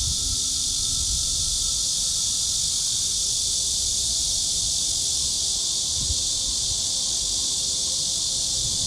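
Steady, dense chorus of insects, an unbroken high-pitched shrill that holds at one level throughout.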